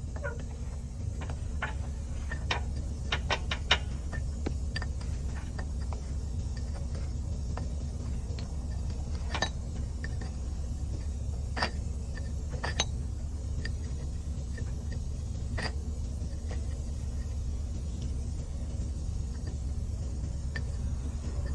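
Scattered sharp clicks and light metallic taps of hand tools during the pinion-seal work, several in quick succession about three seconds in and then single ones every few seconds, over a steady low hum.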